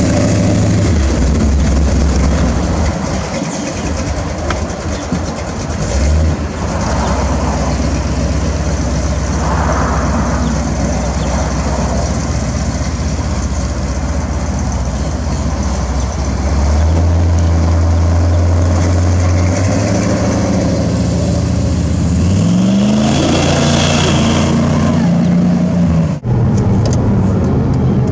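Lifted Chevrolet pickup's 500-horsepower cammed engine running through dual Flowmaster exhausts: a deep, steady exhaust note that revs up in a rising pitch near the end.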